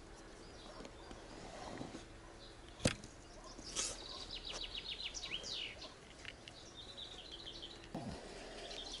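A songbird singing a rapid trill of short, high, falling notes from about three and a half seconds in until about six seconds, with more of the same near the end, over faint outdoor background noise. A single sharp click comes just before the song starts.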